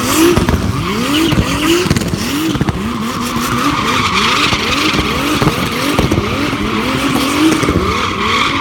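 A drift car's engine revving up again and again in quick rising sweeps, under the continuous screech of its rear tyres sliding sideways.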